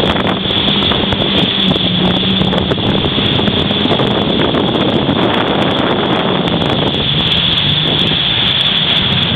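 Jet ski engine running steadily at speed, mixed with wind buffeting the microphone and rushing water.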